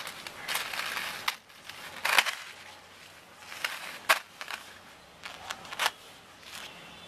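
Handling noise of craft materials on paper: intermittent crinkling rustles and a few sharp clicks as beads and a gold ball chain are moved and laid down.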